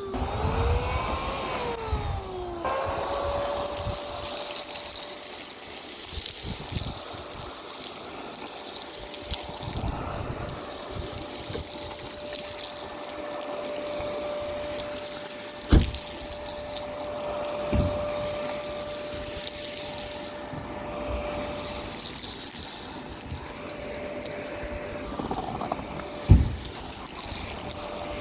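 Miele Complete C2 Tango EcoLine canister vacuum running while sucking up street debris: air rushing through the hose with a gritty crackle, and a motor whine that wavers up and down for the first couple of seconds before settling to a steady pitch. Two sharp knocks stand out, one about halfway through and one near the end.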